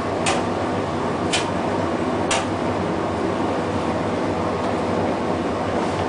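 1961 English Electric 4602 tumble dryer running, its fan and turning drum making a steady mechanical noise. Three sharp clicks come about a second apart in the first two and a half seconds, then only the steady running is left.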